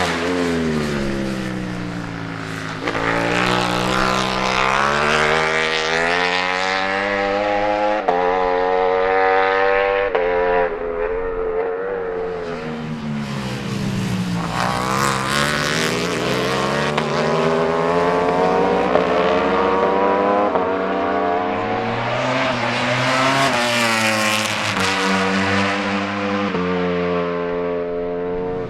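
V4 engines of Ducati Panigale V4 superbikes at racing speed, revving up with sudden pitch drops at the upshifts, then falling in pitch as they brake and downshift, and climbing again as they accelerate. This cycle repeats several times.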